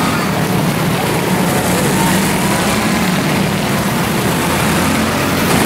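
Several quarter midget race cars with small single-cylinder Honda GX160 engines running laps together on a dirt oval, a steady, even engine buzz with no breaks.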